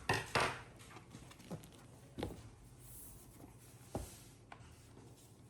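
Sharp clicks and knocks from a laptop and its parts being handled: two loud ones close together at the start, then single knocks a little over two seconds in and about four seconds in, with smaller taps between.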